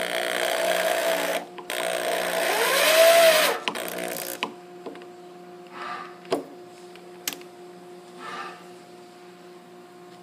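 Hand-held electric drill running in two bursts, boring into the wooden corner of a harp's soundbox; on the second burst the motor's whine rises and then falls as it speeds up and slows. After that, a few light clicks and handling sounds.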